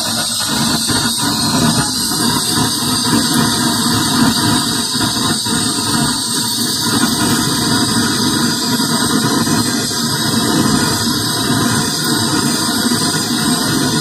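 Hi-Cook butane canister torch burning with a steady hiss, its flame heating a thin aluminium refrigerator evaporator to weld a leak with aluminium wire.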